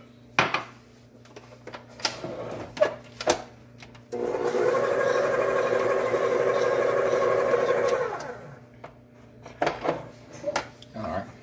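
Stand mixer's motor running steadily for about four seconds, its beater working flour and buttermilk into chocolate cake batter in a glass bowl; it starts and stops abruptly. Scattered clicks and knocks come before and after it.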